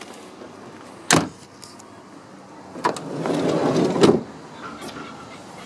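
A car's front door slammed shut about a second in. A couple of seconds later the sliding rear door is unlatched with a click, rolls along its track for about a second and thuds shut.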